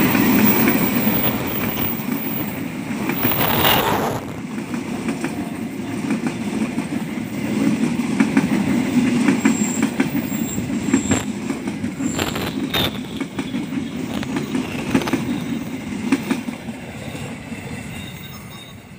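A diesel-hauled passenger train passing close by: a steady low rumble of the diesel-electric locomotive and coaches, with wheels clacking over rail joints and a few brief high wheel squeals around the middle. It fades over the last few seconds as the end of the train goes by.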